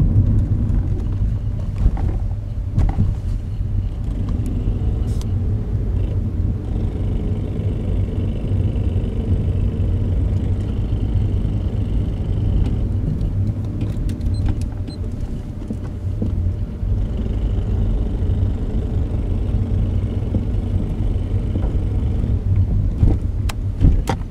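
2004 Acura RL running under way, a steady low rumble with a few scattered sharp clicks: the clicking the car makes when accelerating, its cause unknown to the owner.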